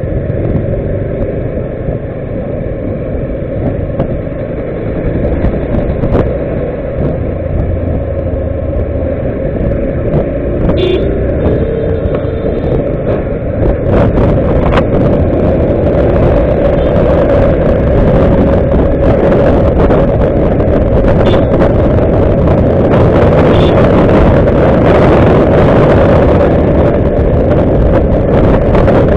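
Motorcycle running down a road as heard from the handlebars, the engine's steady note under road and wind rush that grows louder and brighter from about halfway as the speed builds. A short high beep sounds about eleven seconds in.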